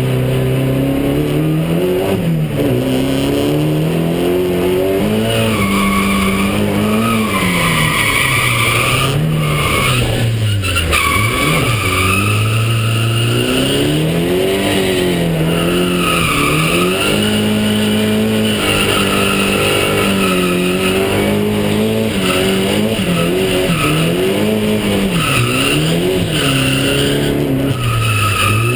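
Drift car's engine revving up and down over and over under throttle, with the tyres squealing in long stretches as the car slides sideways through the corners, heard from inside the cabin.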